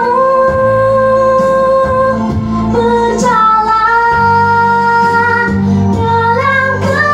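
A young girl singing an Indonesian Christian worship song into a microphone over instrumental accompaniment. She holds two long notes, the second starting about three seconds in, and her voice climbs higher near the end.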